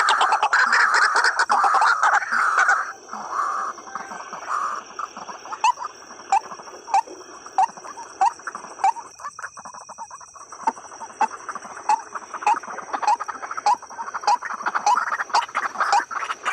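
White-breasted waterhens (ruak-ruak) calling: a loud, dense burst of calls for the first few seconds, then a regular short note repeated about twice a second. A steady high-pitched whine runs underneath.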